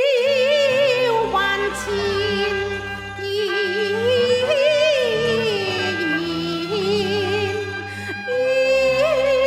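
Cantonese opera music: a melody with heavy vibrato and sliding pitch over held lower accompaniment notes.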